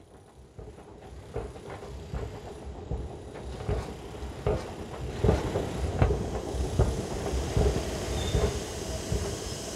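A rumble with many irregular knocks that grows louder over the first few seconds and then holds, over a steady low hum, with a brief high whistle near the end.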